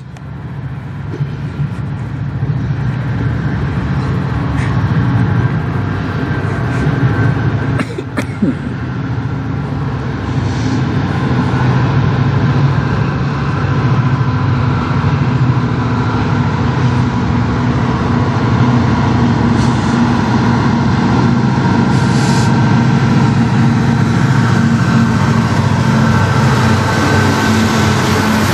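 Lead diesel freight locomotives CN 5762 and CN 5601 approaching on the track, their engines' low rumble building steadily louder until they pass close by near the end.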